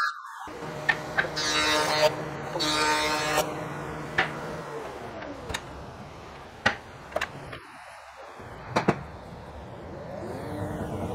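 Woodworking planer (jointer) running and cutting oak strips in two short passes early on, then winding down, with sharp knocks of the boards being handled; the machine starts up again near the end.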